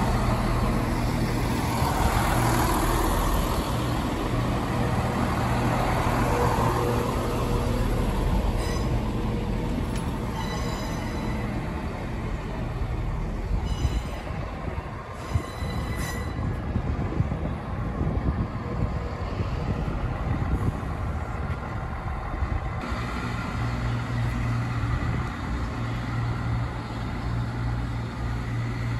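Diesel trains running at a station platform: a steady low engine drone, louder in the first few seconds and again near the end. Faint high-pitched squealing comes and goes around the middle.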